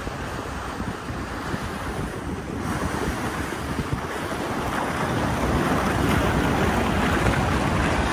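Wind buffeting the microphone over rushing water from a ferry under way, a steady hiss that grows louder about halfway through.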